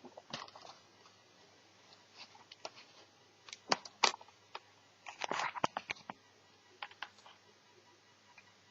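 Scattered clicks, taps and short rustles of small plastic and metal parts being handled while working on an Asus Eee PC netbook, with two sharp loud clicks a little under four seconds in and a quick cluster of clicks about five seconds in.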